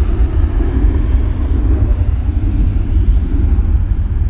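Wind buffeting the microphone: a heavy, uneven low rumble.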